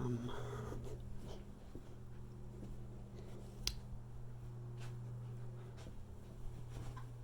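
Quiet room tone with a steady low hum, and one sharp click a little past the middle.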